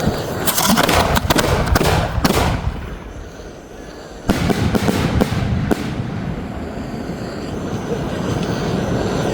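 Fireworks going off in rapid crackling volleys of bangs. The bangs die down about three seconds in, and a sharp bang just after four seconds starts a second run of cracks before they settle into a steadier, noisier rumble.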